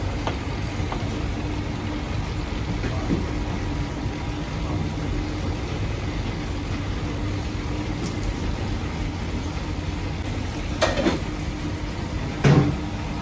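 Steady low rumble of bakery machinery running, with a faint constant hum. Near the end come two sharp knocks about a second and a half apart, the second louder.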